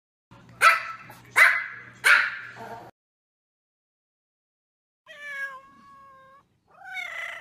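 A dog barks three times in quick succession. After a pause of about two seconds, a cat gives one long meow and starts another near the end.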